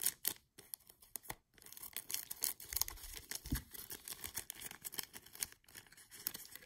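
Thin clear plastic packaging crinkling and crackling in quick irregular snaps as it is cut with scissors and then pulled open by hand.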